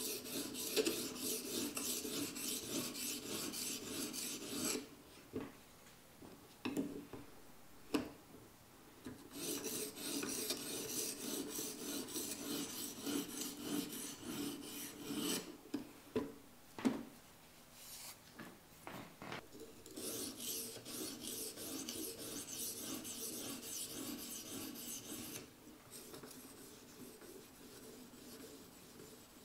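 Edge Pro Apex sharpening stone, wetted with soapy water, stroked quickly back and forth along the edge of an ESEE-4 knife blade. The strokes come in three runs of scraping of several seconds each, with a few light clicks in the pauses between them. This is the finer stone polishing out the coarser stone's scratches and refining the edge.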